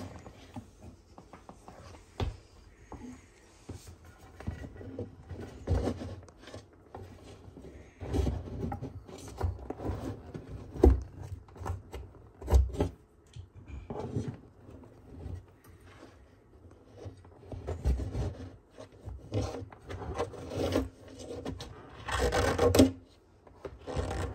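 A sulcata tortoise scraping and pushing against a plywood wall: irregular rasping scrapes and knocks, the loudest a rasping burst near the end.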